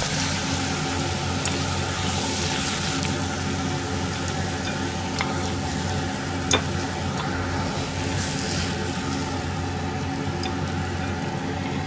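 Hot frying pan sizzling steadily as fried eggs, salmon and cabbage are slid out of it with a spatula, over a steady low hum. A sharp click of the spatula against the pan comes about six and a half seconds in.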